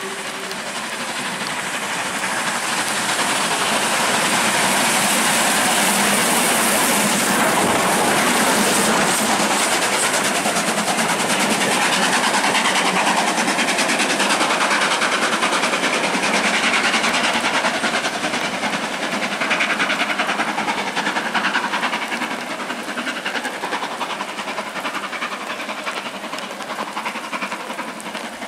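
Two steam locomotives double-heading, an LMS Jubilee 4-6-0 and a Stanier Black Five 4-6-0, working steam as they pass. The sound builds as they approach and is loudest as they go by, with a strong hiss of steam, then eases as they pull away.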